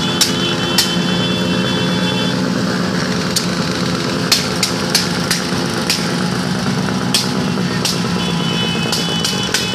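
A pack of small motorcycles running together at low speed, their engines making one steady mixed drone, with sharp clicks scattered through it. A high steady tone sounds for about two seconds at the start and again near the end.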